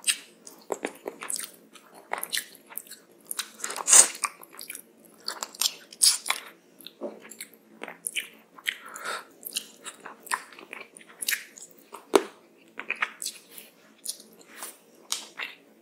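Eating rice and curry by hand: chewing with many short wet clicks and smacks, and fingers squishing rice and curry on the tray. The loudest bites come about four seconds in and again about twelve seconds in.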